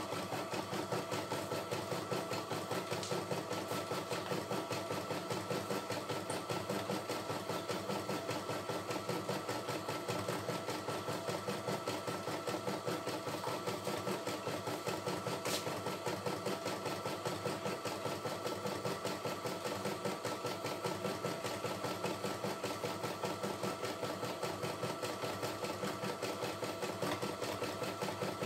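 CNY E960 computerized embroidery machine stitching out a pattern: a steady, fast, even rhythm of needle strokes.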